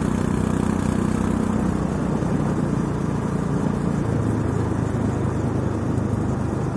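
A motor vehicle's engine running steadily, a low drone over road noise.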